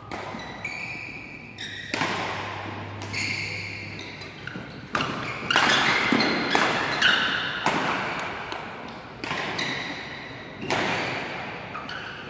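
Badminton rackets striking a shuttlecock in a fast doubles rally: sharp cracks that echo through a large hall, spaced out at first, then about two a second around the middle, with short squeaks between hits.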